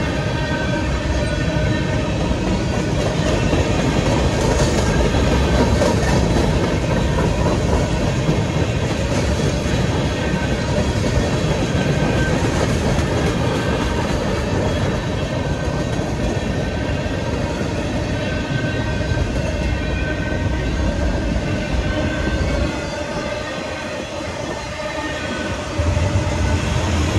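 Freight train cars (tank cars and gondolas) rolling past over the grade crossing: a steady loud rumble of steel wheels on the rails. It eases briefly a little over 20 seconds in, then comes back up near the end.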